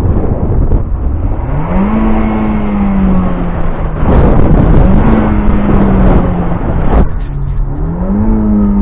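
2017 Honda Civic's 1.5-litre turbocharged four-cylinder (L15B7) revved twice, each time climbing quickly, then holding steady and easing slowly down. A loud rushing noise comes in about four seconds in.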